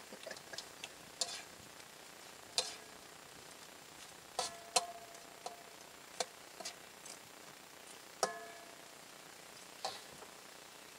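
A metal utensil clinking and scraping against metal cookware while someone eats: about a dozen scattered sharp clinks, a few ringing briefly, over a faint steady hiss.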